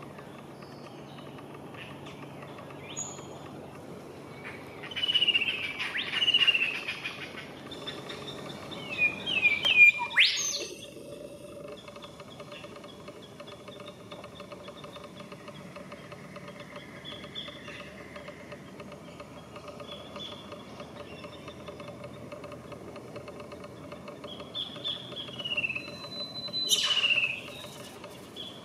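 Birds calling in three spells of short, falling whistled notes, with a sharp click among the notes twice, over a steady faint hiss.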